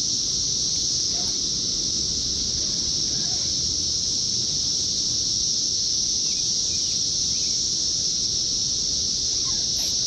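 Dense chorus of cicadas: a continuous, unchanging high-pitched drone, over a low steady rumble.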